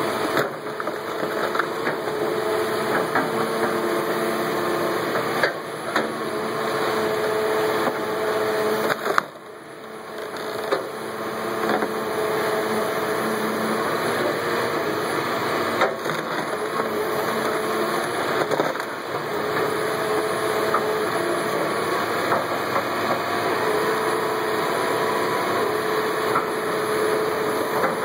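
Tracked excavator running a hydraulic splitting grapple that crushes and splits log rounds: steady diesel engine noise with a hydraulic whine that rises and falls as the grapple works, and a few sharp cracks of wood. The sound drops away briefly about nine seconds in.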